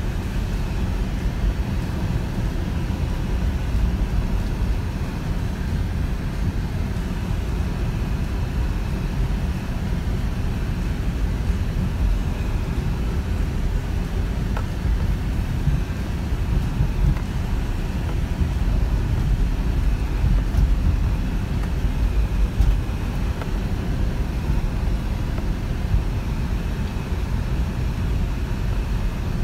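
Steady engine and tyre rumble heard inside the cabin of a 4x4 driving along a rutted dirt track.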